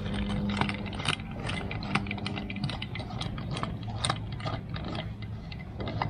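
Hand tools clicking and clinking irregularly on metal as the bolts and washers of a motorcycle crash guard are fitted and tightened with a wrench. Underneath is a low steady hum that stops about two and a half seconds in.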